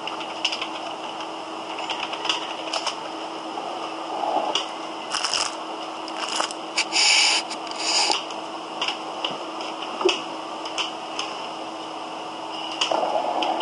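Scattered clicks and short clacks of a computer keyboard and mouse as a password is typed and a login button clicked, over a steady low hum and hiss from the microphone.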